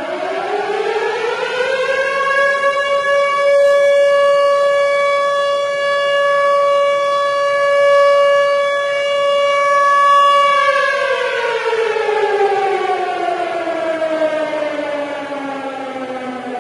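Civil defense air-raid siren wailing: its pitch rises over the first few seconds, holds steady for several seconds, then falls slowly away.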